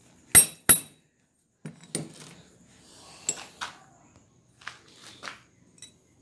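Steel parts clanking and clinking as they are handled on a workbench: two sharp metal knocks in the first second, then several lighter clinks spread over the next few seconds.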